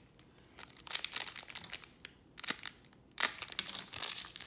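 Trading cards and a foil card-pack wrapper being handled: crinkling and rustling, with a louder burst about a second in and another just past three seconds.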